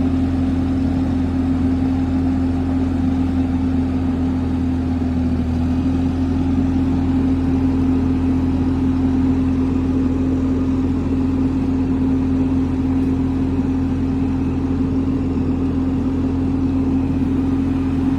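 Engine running steadily at idle, a constant drone that shifts slightly about five and a half seconds in.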